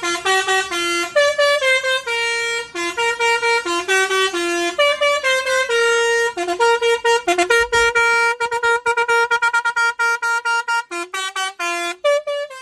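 Basuri telolet multi-tone horn playing its fifth preset melody: a loud, quick tune of short, bright horn notes hopping between a few pitches, turning into faster, choppier notes about eight seconds in.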